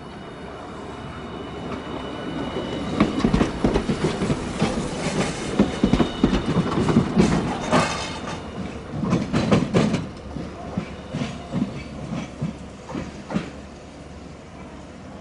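Hiroshima Electric Railway streetcar passing, its wheels clattering over the track in quick clusters of knocks over a low rumble. The sound builds over the first few seconds, is loudest in the middle, and fades out near the end.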